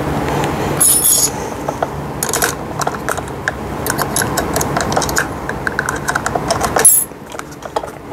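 Metal screw and nut clicking and clinking against a toy tricycle's metal frame as the handlebar stem is fitted and bolted on, with many small clicks and knocks and a sharp metallic jingle about a second in and a louder one near the end.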